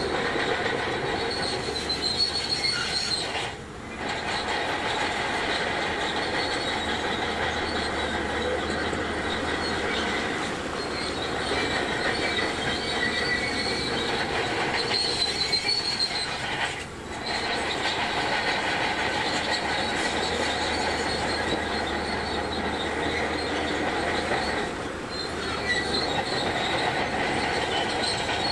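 Crawler bulldozer (Shantui DH17C2) working, its engine running and its steel tracks squealing and clanking as it moves, with brief drops in level about 4 seconds and 17 seconds in.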